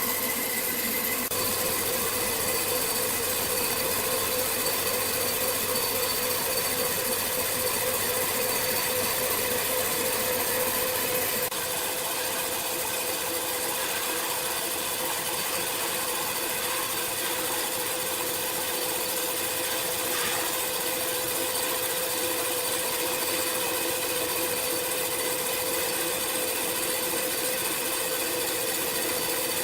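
A power tool's motor running steadily with a constant whine, dropping slightly in level about eleven seconds in.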